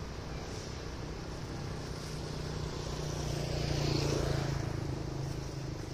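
A vehicle passing on the road: a steady engine hum with tyre noise that swells to its loudest about four seconds in and then fades.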